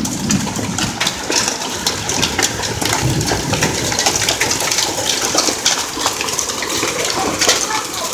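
Hail and heavy rain pelting down: a steady rush of rain thick with the sharp clicks and taps of hailstones striking hard surfaces.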